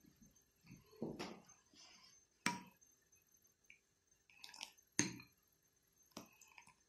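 A metal spoon in a ceramic bowl of soup: a few sharp clinks against the bowl, the two loudest about 2.5 and 5 seconds in, with soft splashes as soup is scooped and poured back.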